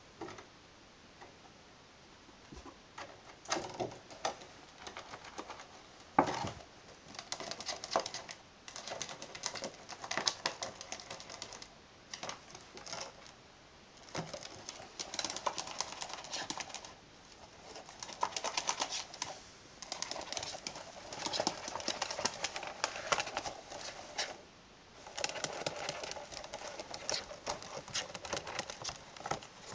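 A ferret's claws scrabbling and scratching against the inside of a clear plastic square tube, in bursts of rapid clicking and rattling with short pauses between them, and one sharp knock of the tube about six seconds in.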